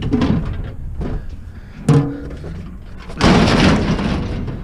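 Scrap metal being picked up and thrown onto a truck: a sharp metallic clang with a brief ring about two seconds in, then a louder crash lasting about a second.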